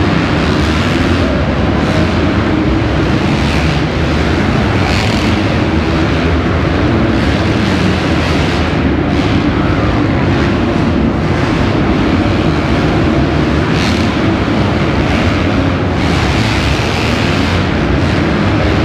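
Several motocross bikes racing around an indoor dirt track, their engines revving and running together in a loud, continuous blare under a covered arena roof.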